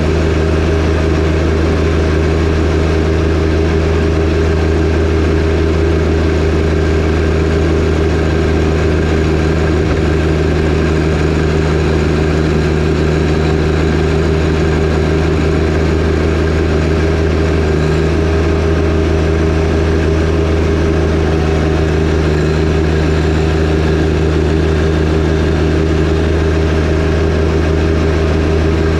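John Deere 1025R compact tractor's three-cylinder diesel engine running steadily while driving the 47-inch snowblower.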